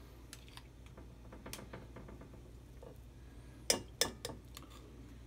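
Small metal spoons clinking and scraping against a stainless steel mixing bowl while scooping soft cookie batter: scattered light taps, then two sharper clinks about three and a half and four seconds in.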